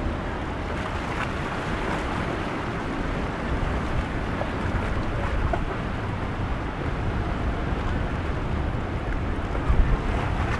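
A boat's outboard engines running through choppy water, under steady wind buffeting the microphone and the wash of breaking waves.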